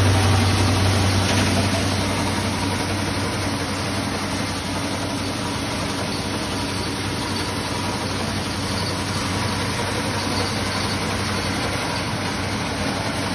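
Wheat cleaning and grinding machine running: a steady low electric-motor hum under an even mechanical whir, a little louder in the first couple of seconds and then constant.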